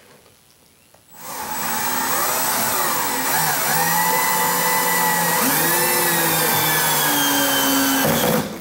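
Cordless drill driving a lag bolt through a TV wall-mount bracket into a wooden stud. The motor starts about a second in and runs steadily for about seven seconds, its pitch dipping and recovering a few times as the bolt takes up load, then stops shortly before the end.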